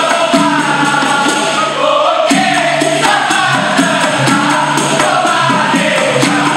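Dikir barat singing: a group of male voices sings together in unison with a lead voice, over a steady beat of hand drums and percussion.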